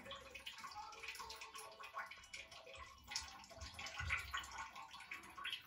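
Faint, scattered small knocks and a few soft low thumps in a small, echoing room, louder about three to four seconds in.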